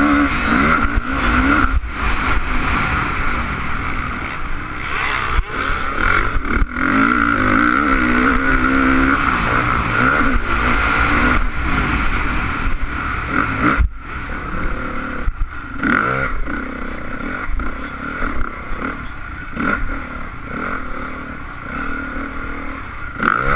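Honda CRF450 motocross bike's single-cylinder four-stroke engine revving up and down, heard from the rider's helmet camera with wind rush and sharp knocks from the bike over bumps. It gets somewhat quieter about halfway through.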